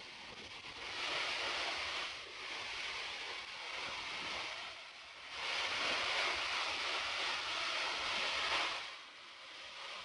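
Steady rushing roar of a tall waterfall crashing down, heard close in its spray. It swells and eases, loudest in two stretches, about a second in and again from about halfway to near the end.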